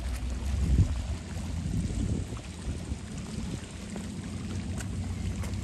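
Seawater lapping and sloshing against shoreline rocks, over a steady low rumble, with a louder surge about a second in.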